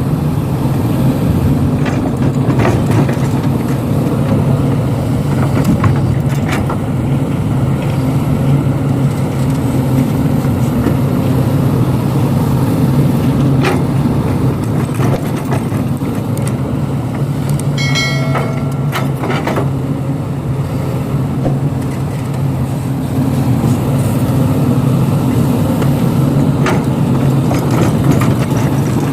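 Heavy diesel engine running steadily under load at an excavator and dump-truck worksite, with a deep, even hum. Occasional knocks and clanks sound through it, and a brief high-pitched tone comes about 18 seconds in.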